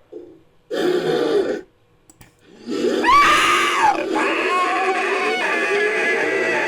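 Made-up creature vocalization for a humanoid hawk, mixed from a human voice and bird and monster recordings: a short low call, a pause, then a long screeching call that swoops up and then wavers down in pitch.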